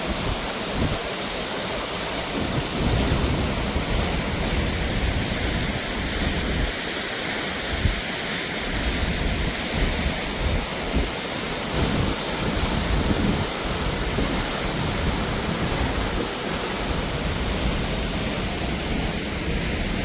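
Waterfall rushing in a steady, even roar, with irregular low rumbles from wind buffeting the microphone.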